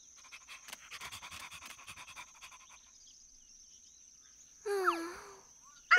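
Cartoon puppy panting quickly for a couple of seconds, then giving one short bark or yelp near the end.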